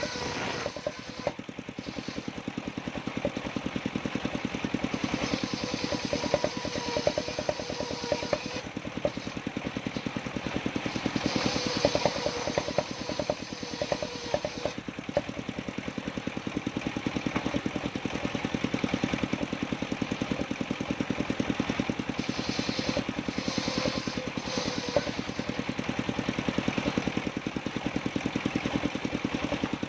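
Engine of a mobile circular sawmill running steadily, with a rapid, even chugging.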